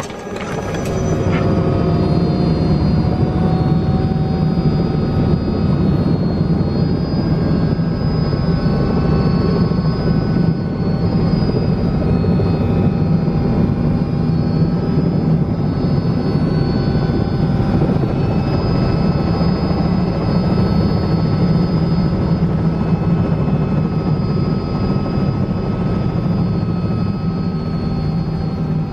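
Helicopter engine and rotor heard from inside the cabin, swelling over the first two seconds with a whine gliding upward as it powers up, then a loud, steady drone as it moves off over the airfield.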